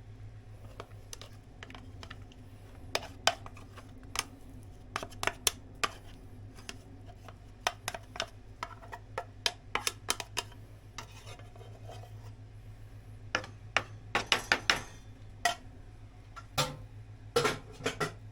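Irregular clinks and knocks of small hard objects, most likely metal parts, being handled and set down, in scattered clusters with a steady low hum underneath.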